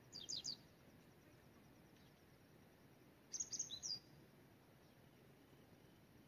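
Bird calls: a quick run of short, high, falling chirps at the start and another about three seconds in, against a near-silent background.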